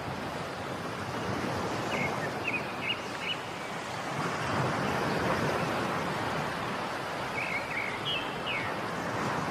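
Outdoor ambience: a steady rushing noise that swells a little midway, with a few short bird chirps about two seconds in and again near the end.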